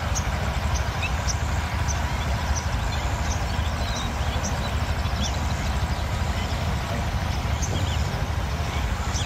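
Birds chirping with short, high, repeated calls over a steady low rumble.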